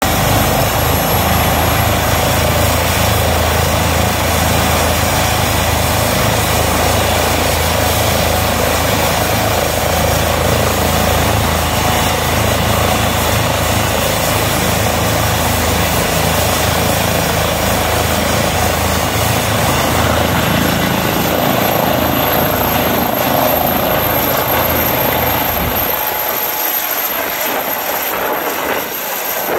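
ADAC Airbus H135 rescue helicopter running with its twin turbines and main rotor turning, then powering up and lifting off near the end. A steady low rotor hum runs under the engine noise, a high turbine whine comes in about two-thirds through, and the low hum falls away as the helicopter rises.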